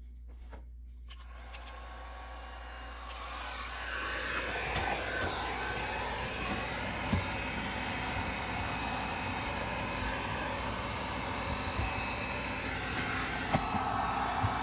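Electric heat gun running, its fan blowing a steady whooshing stream of air that builds up over the first few seconds, aimed at crimped wiring connections to shrink them, with a few small clicks of handling.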